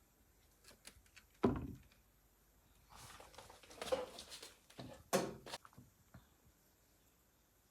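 A few soft knocks and rustles indoors: a low thump about a second and a half in, rustling a little past the middle, and another knock shortly after.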